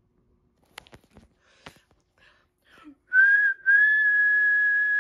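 Steam locomotive whistle: a short blast, then a long steady blast held for about two seconds, preceded by a few faint clicks.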